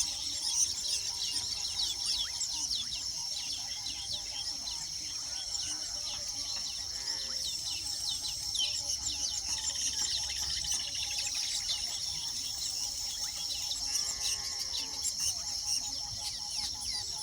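Weaver birds chattering in many short, quick chirps over a steady high-pitched insect drone.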